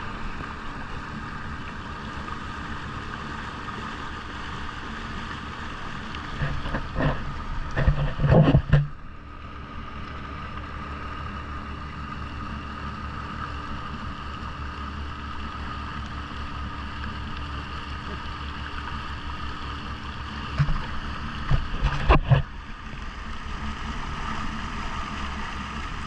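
Jet ski engine running steadily while it tows an inflatable tube across the water, with two loud bursts of rough rushing noise, one about seven seconds in and one about twenty-one seconds in, each lasting around two seconds.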